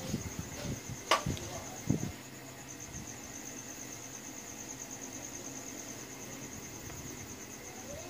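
Insect trilling: a steady, high-pitched, finely pulsing trill. A sharp click comes about a second in, with a few soft knocks in the first two seconds.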